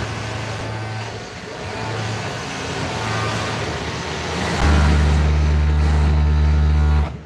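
An electric machine motor in a garment workshop, running in bursts. It runs in weaker spells over the first few seconds, then steadily and loudly from about four and a half seconds in, and cuts off just before the end. Underneath is a constant background of workshop machine noise.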